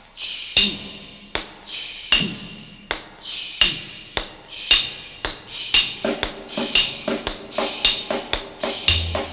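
Hammer blows on steel in a steady steel-driving rhythm, each strike ringing with a metallic clang, about one every three quarters of a second. About six seconds in, the strikes come faster with lower ringing between them, and a deep bass note comes in near the end.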